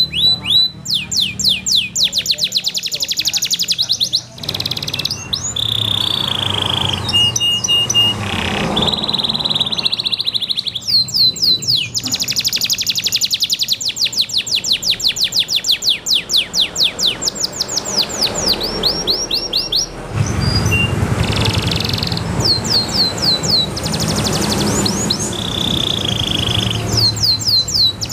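Domestic canary singing a loud, clear, continuous song: fast trills of rapidly repeated notes that switch to a new trill every second or few, broken by a few short held whistled notes.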